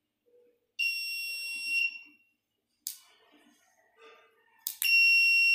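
Piezo buzzer on an Arduino overload-protection board sounding a steady high-pitched alarm tone for about a second, then a click, then the same alarm tone starting again near the end and holding.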